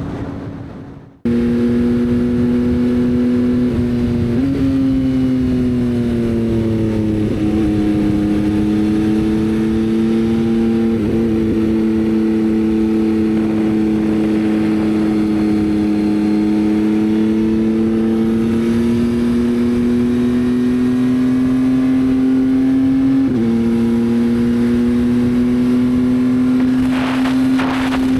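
Motorcycle engine running under way at a steady, loud pitch. The pitch drifts slowly up and down and steps a few times, as with throttle and gear changes. It begins abruptly about a second in, after a brief silence.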